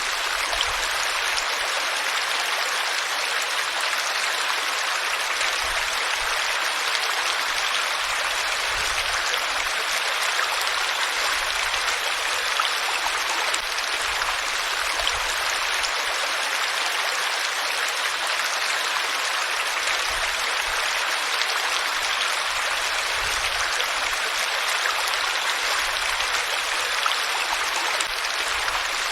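Water flowing in a stream, a steady rushing and splashing without change.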